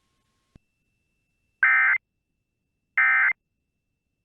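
NOAA Weather Radio EAS end-of-message data bursts: two short, raspy digital bursts about a second apart, signalling that the warning broadcast is over.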